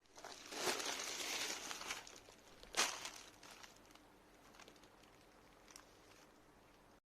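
Crinkling and rustling from something being handled, loudest in the first two seconds, with one sharp crackle about three seconds in, then only faint rustles.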